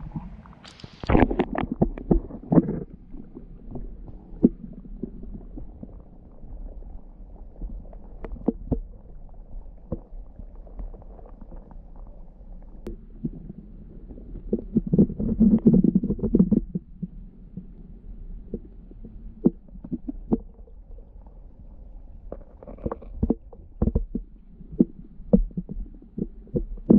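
Muffled underwater sound of a shallow, rocky stream picked up by a submerged camera: low rumbling and gurgling of flowing water with scattered small clicks and knocks. A brief louder burst of noise comes about a second in, and the rumbling swells again about midway.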